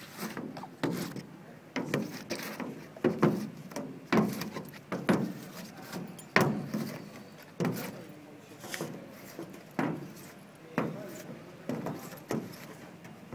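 Squeegee strokes and a wooden-framed silkscreen working against the side panel of a van: a sharp knock or scrape about once a second, unevenly spaced, each with a short ringing tail from the hollow panel.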